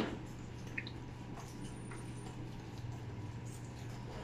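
A metal spoon stirring a thick spice marinade in a stainless steel bowl, clicking once sharply at the start and then ticking faintly against the bowl a few times, over a steady low hum.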